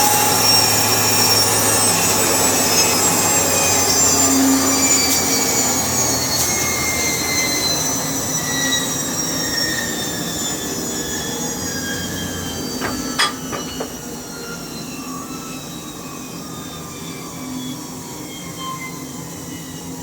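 Sawmill saw spinning down after its power is cut: a high, many-toned whine that falls slowly in pitch and fades, with a sharp knock about two-thirds of the way through.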